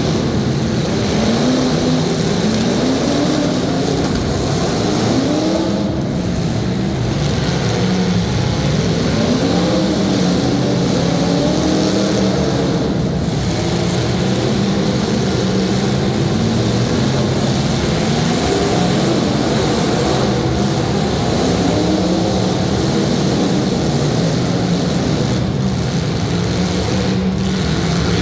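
Several demolition derby cars' engines running hard, revving up and down again and again as the cars push and hit each other.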